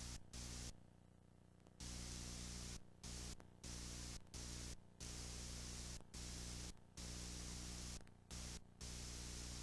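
Steady hiss and electrical hum from an analog video transfer, with no game sound. It cuts out about nine times, once for about a second near the start and otherwise briefly.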